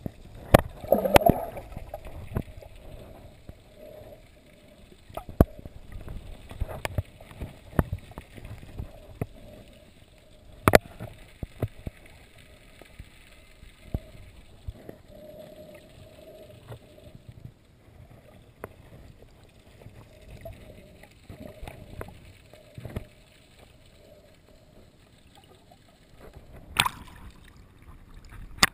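Muffled underwater sound picked up by a submerged camera held by a snorkeler: a low water rumble with a faint steady hum and scattered sharp clicks and knocks. The loudest knocks come about eleven seconds in and again near the end.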